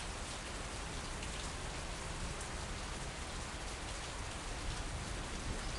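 Steady rain falling on garden foliage and wet paving: an even, constant hiss of many drops.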